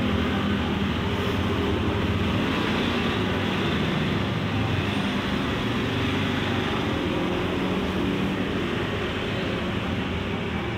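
Steady low engine rumble of an idling motor vehicle, with traffic noise.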